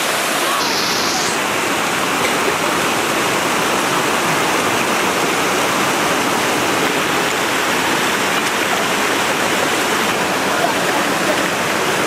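Steady rush of a mountain waterfall cascading over rock, close by.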